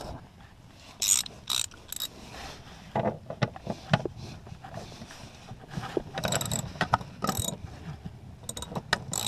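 Hand socket ratchet loosening a vehicle seat-mounting bolt with a 14 mm socket: several short runs of pawl clicking with pauses between them.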